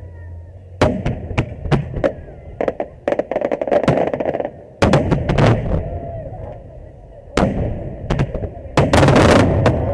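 Aerial firework shells bursting: a string of sharp bangs, with dense rapid volleys of reports about three seconds in and again near the end.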